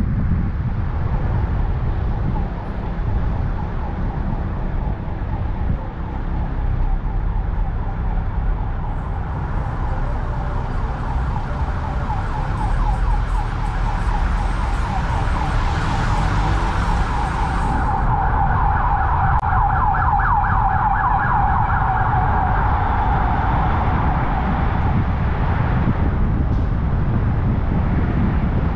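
Emergency vehicle siren with a rapidly wavering tone, growing louder through the middle and stopping shortly before the end, over the low rumble of a car driving in town traffic.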